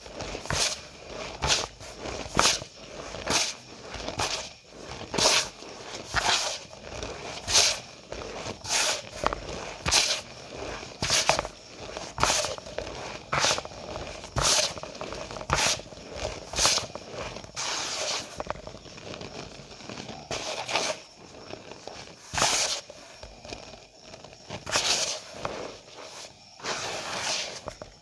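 Cornstarch powder squeaking and crunching as it is squeezed and pressed, in short repeated squeezes about once a second; in the last third the squeezes come fewer and last longer.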